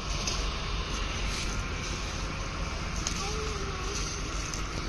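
Outdoor ambience: a steady low rumble and hiss, with a few faint rustles and a brief faint wavering call a little past three seconds in.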